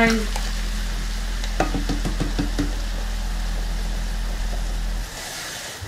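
Minced meat and mushrooms frying in a pan, with cooking cream just poured in. A short run of clatters comes around two seconds in. A steady low hum runs underneath and stops about five seconds in.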